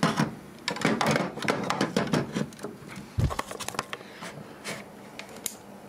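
Handling noise from the opened hard drive and its cables: a rapid string of clicks and knocks for about two and a half seconds, then a single low thump about three seconds in, over a faint steady hum.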